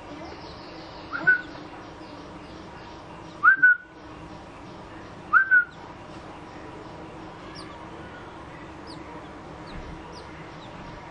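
Three loud, short, rising whistles about two seconds apart, then a run of faint, thin, very high cheeps from the few-days-old Oriental magpie-robin nestlings begging in the nest.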